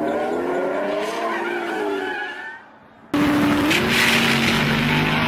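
A car's engine revving, its pitch climbing and then falling away. About three seconds in, a sudden cut brings a louder drag car launching at full throttle off the line.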